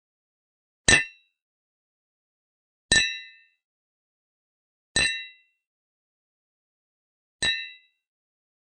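Thin glass mugs clinked together in a toast: four separate clinks about two seconds apart, each a short high ring that dies away quickly.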